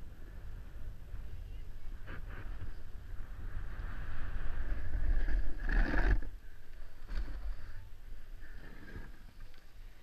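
Snowboard scraping over packed snow with wind rumbling on the microphone. The hiss builds and peaks in a loud, sudden scrape about six seconds in, then settles quieter.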